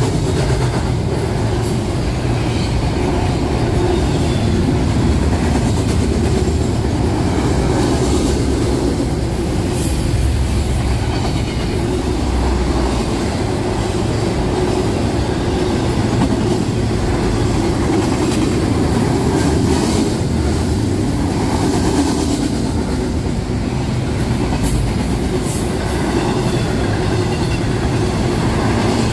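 Freight train rolling past close by: a steady heavy rumble of the cars, with occasional clicks of the wheels over the rail joints.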